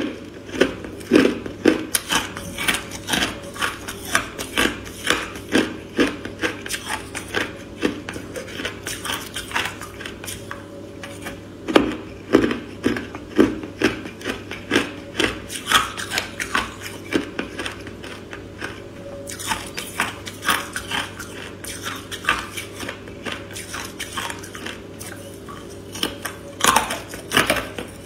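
Frozen matcha ice cubes crunched between the teeth: irregular crisp crunches and cracks, dense at first, thinning in the middle and picking up again near the end.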